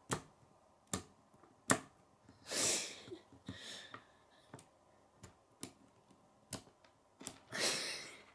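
K'nex plastic parts clicking and snapping as a rod is pushed through connectors and a pin piece is fitted: irregular sharp clicks, the loudest three in the first two seconds and another about six and a half seconds in. Two longer hissing rustles come in between, around three and eight seconds in.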